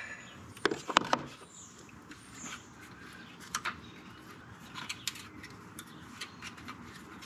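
Scattered clicks and light knocks of hands handling plastic parts and hoses in a car's engine bay. A few sharper ones come close together about a second in, then sparser, fainter ticks.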